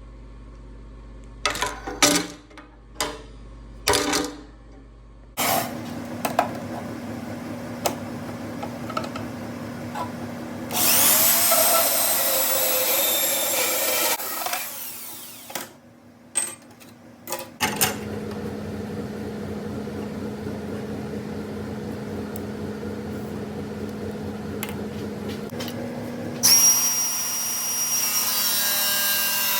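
Power tools working steel round stock: a few knocks of metal parts, then a motor running steadily with a loud high-pitched screech of metal cutting. Near the end a second stretch of bright, ringing metalwork follows.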